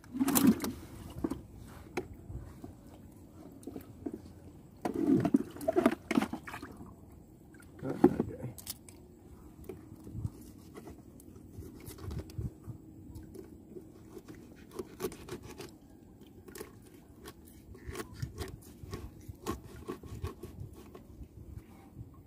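Irregular scraping, light knocks and clicks of things being handled, with louder bumps about five and eight seconds in.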